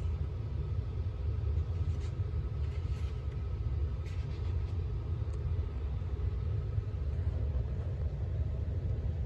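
Steady low background rumble with a few faint clicks, and a faint thin tone that stops about seven seconds in.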